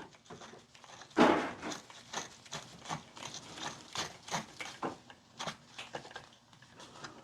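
Irregular small metallic clicks and knocks, with a louder knock about a second in, as the trigger guard screws of a Finnish M39 Mosin-Nagant rifle are tightened with a screwdriver during reassembly.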